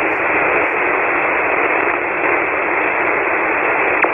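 Steady hiss of band noise from a ham radio transceiver tuned to an SSB voice frequency on 40 metres, confined to a narrow voice range, with a brief click near the end. The frequency is open: the other station is off the air between transmissions while he changes his power.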